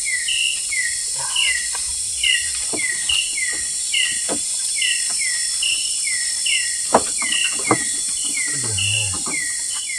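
Forest wildlife: a small animal's two-note chirp, a short high note then a falling one, repeated steadily about once a second over a constant high insect drone. A couple of sharp knocks come about seven seconds in.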